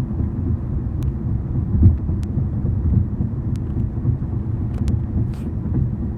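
A steady low rumble, with a few faint, irregular clicks over it.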